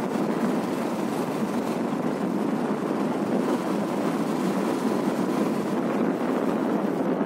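Motorcycle riding along at a steady pace: a steady mix of engine and wind noise on the microphone, with no change in speed.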